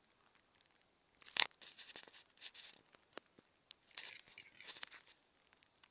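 Male western capercaillie giving its display song: scattered dry clicks, a sharp pop about a second and a half in, then a scratchy, wheezing phrase, with a second wheezing phrase near the end.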